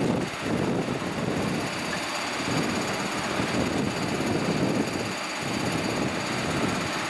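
WAP-5 three-phase electric locomotive standing just after start-up with its auxiliary machinery running. It makes a continuous rushing hum whose low rumble swells and eases several times.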